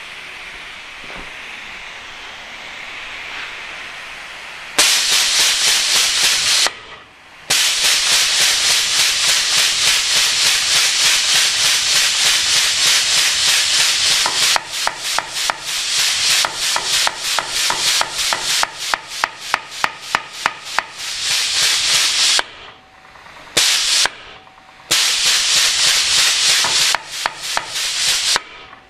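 Homemade pneumatic power hammer, a hydraulic cylinder run on compressed air through Arduino-controlled valves, cycling its ram. Compressed air exhausts from the valves in a loud, rapidly pulsing hiss with every stroke. It starts about five seconds in, pauses briefly a few times, and starts again.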